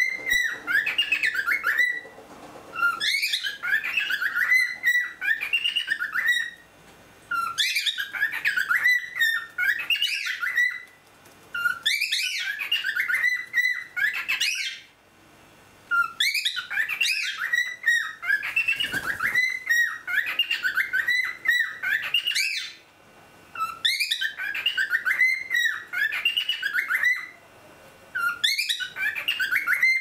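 Cockatiel whistling its song, the same warbling phrase repeated about every four seconds with short pauses between.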